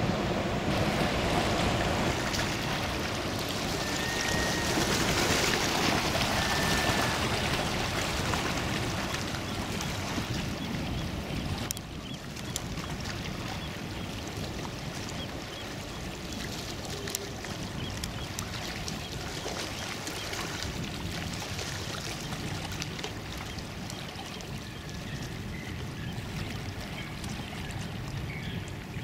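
A boat under way: a steady rush of water and engine noise, louder for the first ten seconds or so and then a little quieter. Two short high chirps sound a few seconds in.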